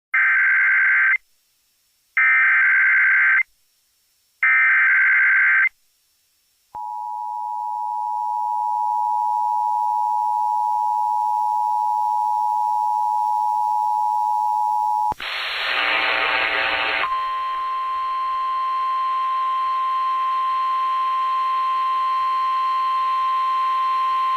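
Emergency Alert System severe thunderstorm warning over AM radio. Three roughly one-second bursts of SAME header data are followed by the two-tone EAS attention signal, held steady for about eight seconds. It breaks into a brief burst of noise, then a single steady higher tone with fainter tones beneath it, the NOAA Weather Radio alarm tone relayed.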